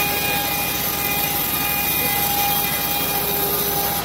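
Homemade band sawmill cutting a teak board: the blade runs in the cut with a loud, steady whine over a noisy rumble, and the whine stops at the end.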